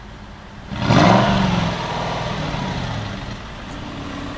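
Aston Martin V8 Vantage's 4.7-litre V8 idling, then revved once sharply about a second in, its pitch falling back and settling into a steady idle.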